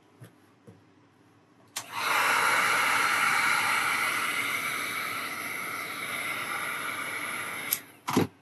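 Heat gun switched on with a click about two seconds in, blowing with a steady hiss for about six seconds while it heats the vinyl wrap film, then switched off with a click. A short knock comes right after.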